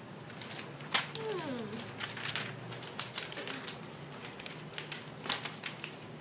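Sheets of drawing paper being handled and flipped: a string of crisp rustles and taps, the sharpest about a second in. A brief tone falling in pitch sounds just after that first tap.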